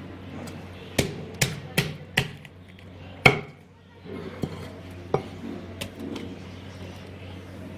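Chopping of a goat head: five sharp, hard chops about one to three and a half seconds in, the last the loudest, then a few lighter knocks, over a steady low hum.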